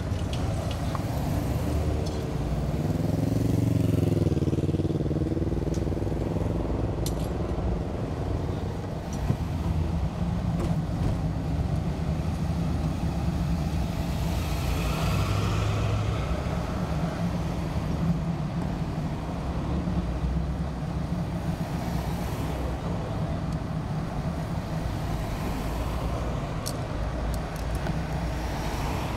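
Street traffic with motor vehicle engines running as a steady low rumble. About three seconds in, a passing engine's note rises and falls, and a brief hiss follows near the middle.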